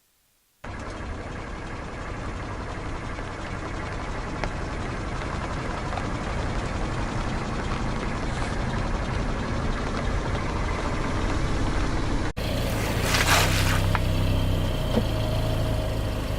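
Car engine running close by with steady road and tyre noise, slowly growing louder. About 12 s in the sound cuts to the engine idling low, with a few sharp cracks and crunches of objects breaking under the tyres.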